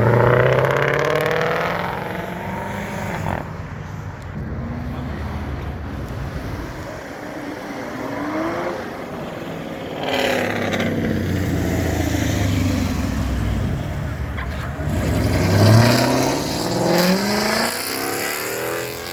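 Cars driving past one after another, their engines revving as they accelerate away: one at the start, another about ten seconds in, and the loudest a few seconds later.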